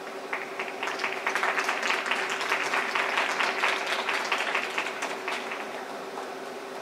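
Spectators applauding at the end of a figure skating program, the clapping swelling a moment in and dying away after about five seconds, with a steady hum underneath.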